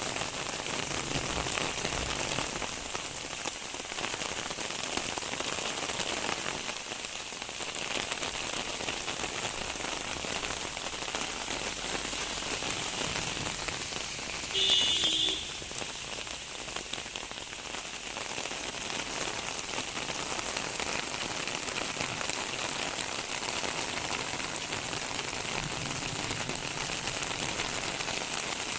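Steady rain falling on surfaces. About halfway through, a brief, louder pitched sound cuts in for about half a second.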